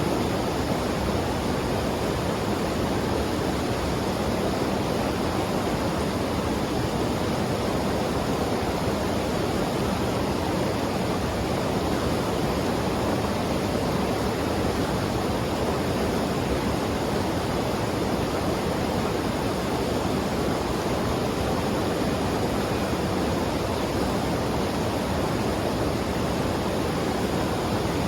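Fast-flowing mountain river rushing over rocks: a steady, unbroken roar of water.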